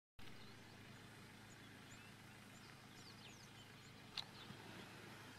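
Near silence: faint outdoor ambience with a few faint, high bird chirps and a single short click about four seconds in.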